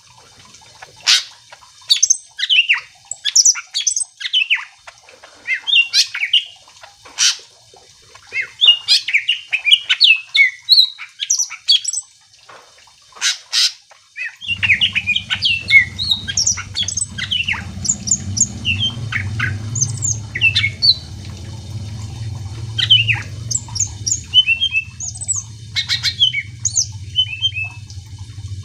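Cucak ijo (green leafbird) singing: a rapid, varied run of sharp chirps and whistled notes. About halfway in, a steady low hum starts underneath the song.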